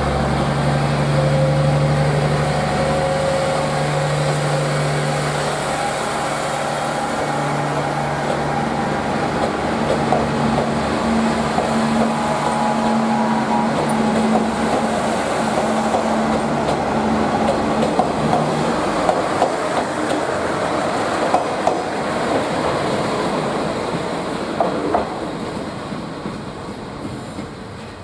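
KiHa 48-based Resort Shirakami diesel railcar train running slowly past, its diesel engines giving a steady low drone and its wheels clacking over rail joints. The engine note drops away about two-thirds of the way through, the clacking carries on, and the sound fades near the end.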